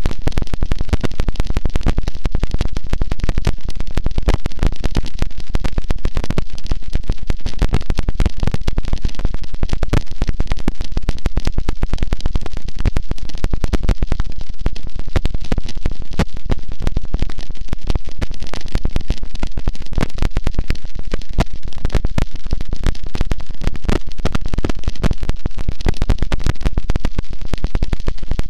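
Harsh noise wall: a loud, unchanging wall of dense, distorted crackling static, heaviest in the low end, with no rhythm, melody or pauses.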